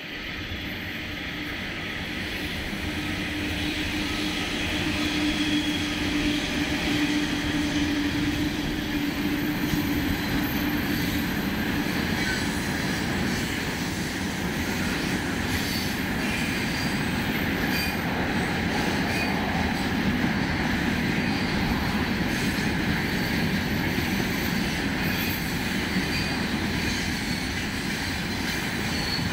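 A VL11 electric freight locomotive approaches and passes with a steady hum over the first ten seconds or so. Its long train of tank wagons then rolls by close at hand, a continuous rumble of steel wheels on rail.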